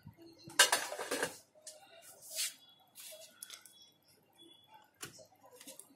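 Short scraping and rubbing noises of hands working at the edge of an LED TV panel's circuit board, where a shorted capacitor is being taken off. The loudest lasts about a second, starting about half a second in, followed by a hissier one and a few faint clicks.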